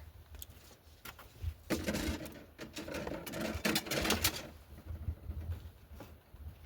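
Archery gear being handled at close range: a rapid, irregular clatter of clicks and rattles through the middle, with single sharp clicks before and one near the end.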